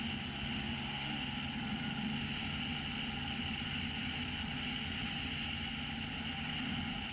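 A small motorcycle engine running steadily at road speed under a haze of wind and road noise, picked up by a camera on the moving bike.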